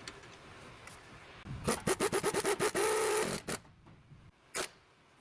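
Impact wrench tightening suspension nuts: about a second and a half in, a quick run of rattling hammer blows, then a brief steady whir as it stops. A single sharp click near the end.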